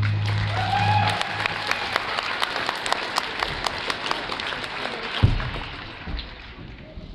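The last held note of the music accompaniment cuts off about a second in while an audience claps; the applause dies away after about six seconds.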